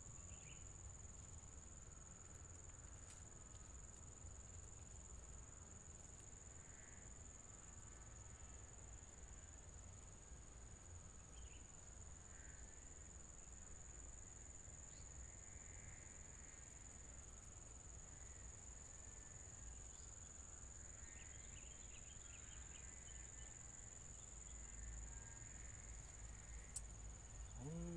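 Faint, steady high-pitched chirring of insects, such as crickets, over a low rumble.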